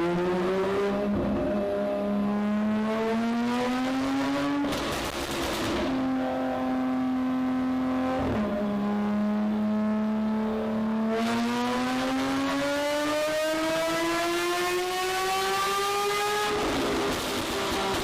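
Modified Porsche 911 GT3's flat-six engine pulling hard: the pitch climbs, breaks off briefly at a gear change about five seconds in, steps down again near the middle, then rises steadily for several seconds before another shift near the end.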